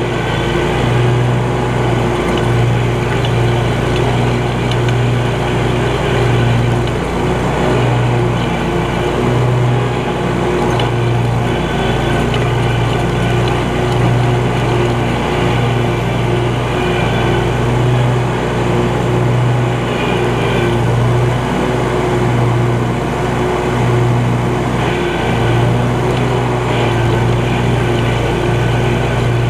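Scag Cheetah 52 zero-turn riding mower's engine running steadily at mowing speed while it cuts grass.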